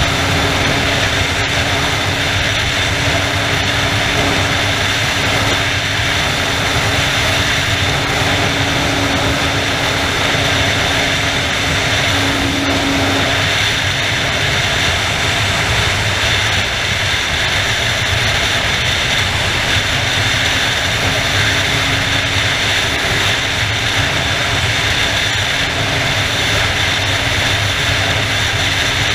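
Sport motorcycle cruising steadily at highway speed: a constant rush of wind and road noise over a faint, steady engine drone.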